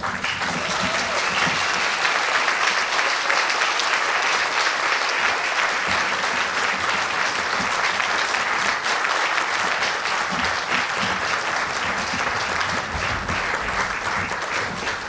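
Audience applauding in a large hall: dense, steady clapping that starts abruptly and thins out a little near the end.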